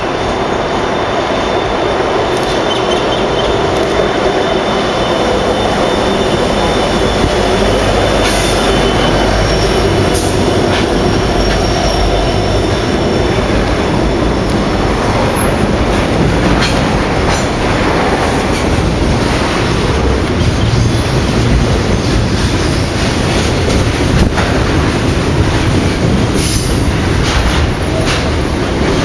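Two QR National LDP-class diesel-electric locomotives pass close by with their engines running, followed by a long string of loaded container wagons rolling past. The wagons give a steady rumble with scattered clicks and clatter from the wheels on the track, and a faint high wheel squeal in the first third.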